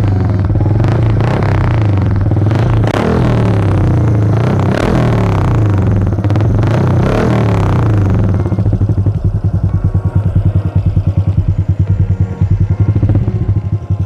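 Honda XRM125 FI's single-cylinder four-stroke engine running through an HGM aftermarket muffler with no silencer insert, a full, deep note. It is blipped up and down several times over the first eight seconds or so, then settles to a steady, pulsing idle.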